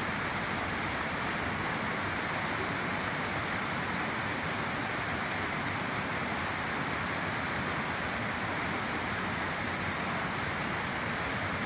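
Small river flowing, a steady, even rush of water.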